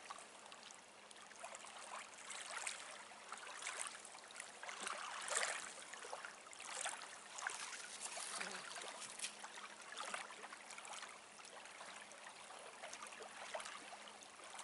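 Small waves lapping at the lakeshore: a soft continuous wash broken by irregular small splashes.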